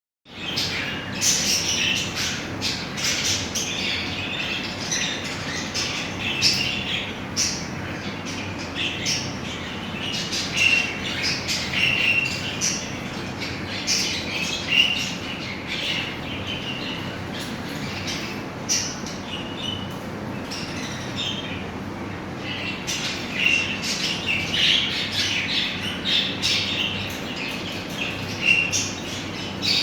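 Many small aviary birds kept for breeding chirping and squawking in short, rapid calls over a steady background hiss.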